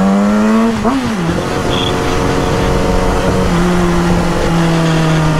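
Yamaha R6 sport bike's inline-four engine heard from the rider's seat: the engine note climbs, drops sharply about a second in, then holds steady while cruising.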